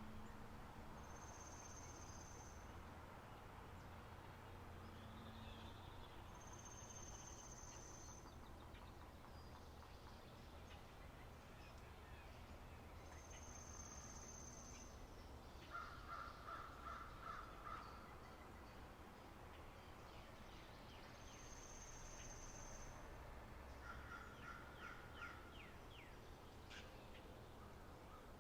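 Faint spring birdsong ambience: a high, thin whistled note about a second and a half long, repeated every several seconds, with two runs of rapid, chattering repeated calls, one about midway through and one near the end.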